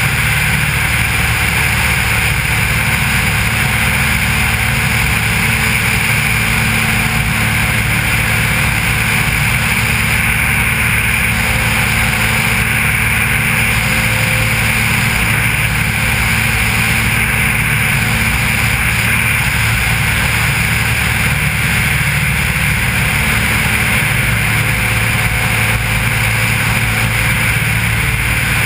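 Maule M4 floatplane's piston engine and propeller running steadily in level cruise flight, with the rush of airflow, heard from a camera mounted under the wing tip.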